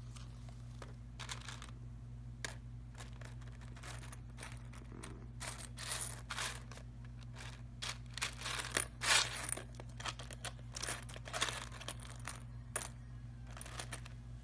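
Small plastic LaQ construction pieces clattering as a hand rummages through a box full of them: irregular runs of quick clicks and rattles, busiest in the middle.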